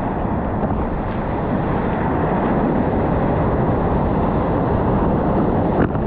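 Steady rush of wind noise on the microphone mixed with the roar of waves breaking just ahead, heard from a board out in the surf.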